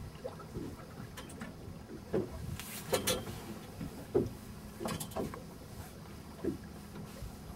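Small waves slapping against the hull of a fishing boat, irregular splashy knocks about once a second over a steady low rumble of water and wind.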